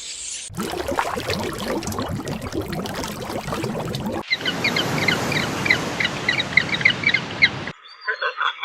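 Birds calling outdoors. Crowded, noisy calling gives way at an abrupt cut about four seconds in to a run of short, high chirps repeated a few times a second over a steady hiss.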